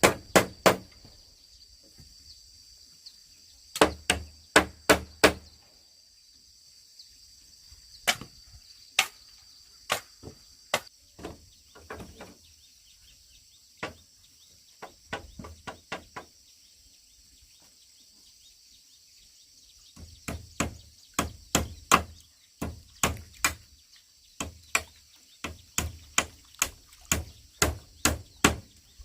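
Hard chopping blows in quick runs of several strikes, about two to three a second, with pauses between the runs; the longest run comes in the last third. A steady high insect drone sounds underneath.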